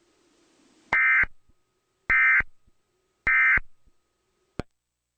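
Emergency Alert System end-of-message data tones: three short, buzzy digital bursts about a second apart, the coded signal that marks the end of the alert. A single click follows near the end.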